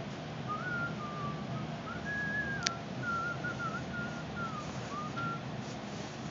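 A person whistling a tune by mouth: a string of short notes stepping up and down, with a sharp click about two and a half seconds in, over a steady low background hum.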